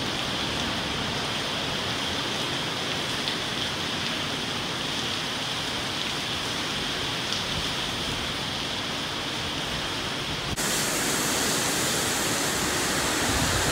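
Hurricane wind and driving rain making a steady rushing noise. About ten seconds in it abruptly gets louder and brighter.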